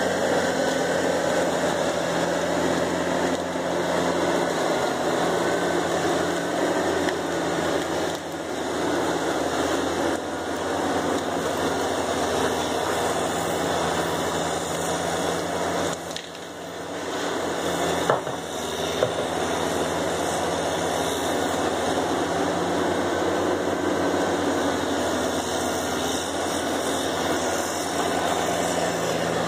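Diesel engine of a John Deere grapple skidder running steadily, with a brief drop in level about halfway through and two sharp knocks about a second apart shortly after.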